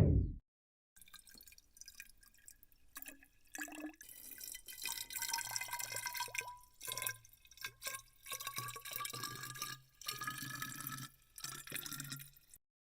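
Hot water being poured into an AeroPress chamber, splashing and trickling in several separate stretches with sudden breaks, its pitch rising slowly as the chamber fills.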